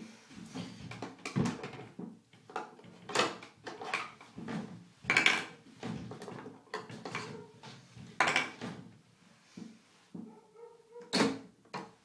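Toy Miele washing machine handled by hand: irregular plastic clicks, knocks and short rattles, the louder ones about 3, 5, 8 and 11 seconds in, as its detergent drawer is worked and pulled open.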